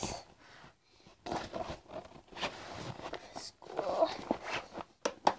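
Rustling and scraping as a folder is pushed into a fabric school bag, with two sharp clicks near the end.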